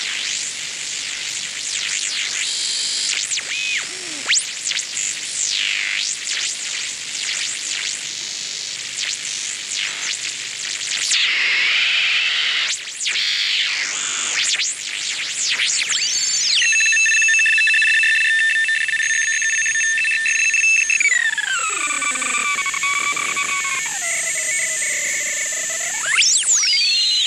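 Shortwave regenerative receiver (Twinplex circuit, type 19 tube) being tuned across the band: hiss with heterodyne whistles gliding up and down as signals pass. About sixteen seconds in, several steady carrier tones hold for a few seconds, some keyed on and off. They then slide lower together as the dial moves on.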